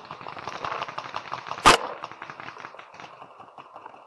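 One loud, sharp pop of a paintball marker firing close by, about a second and a half in, over a steady run of small rapid clicks and crackles.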